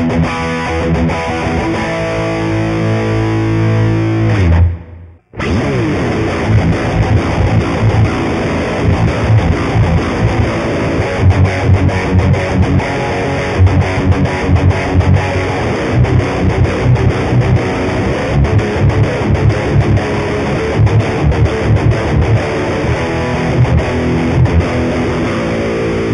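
Lavish Drogo-7 seven-string electric guitar playing riffs in ordinary six-string style, then, after a brief cut in the sound about five seconds in, rhythmic low riffs that use the extended low range of the seventh string.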